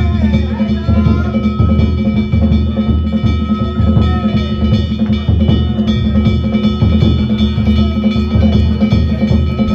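Danjiri float's festival percussion: drum and hand gongs played loudly and continuously.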